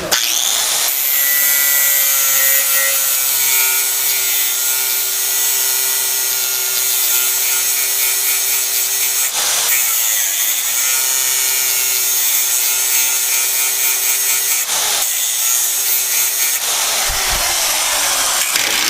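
Small angle grinder cutting into the steel ring of a Fiat Grand Siena gearbox's pinion bearing to get it off the shaft, a steady high grinding whine that breaks off briefly a couple of times as the disc is eased off and put back on.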